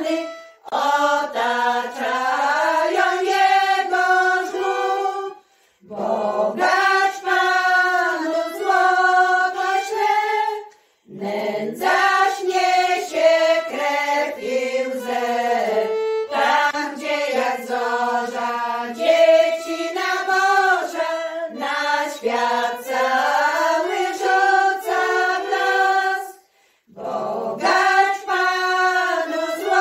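Women's folk choir singing a Polish Christmas carol (kolęda) in long phrases with brief breath pauses between them, with violin accompaniment.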